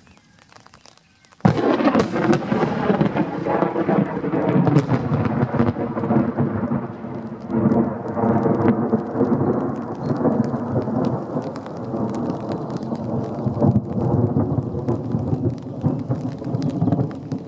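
Thunder from a close lightning strike, a few hundred metres away: a sudden sharp crack about a second and a half in, then a long, loud rolling rumble with crackling that slowly loses its higher edge.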